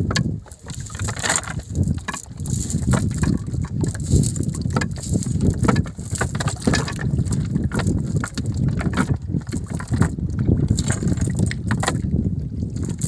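Wind buffeting the microphone as a low, uneven rumble, with scattered sharp clicks and rustles from a nylon cast net and its lead sinkers being gathered and handled on a wooden boat's plank deck.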